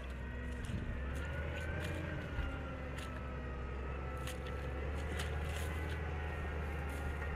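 Deutz-Fahr TTV 1160 tractor's diesel engine running steadily under load while pulling a plough, with a faint high whine above the low drone and a few brief clicks.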